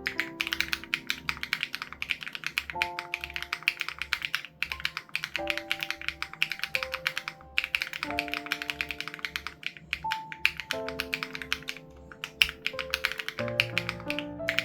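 Fast, continuous typing on an SPM AL87B mechanical keyboard with BSUN Raw switches and its sound-dampening foam removed: a dense run of key clacks with a couple of brief pauses. Under it plays soft background music, sustained chords changing every few seconds over a low pulsing beat.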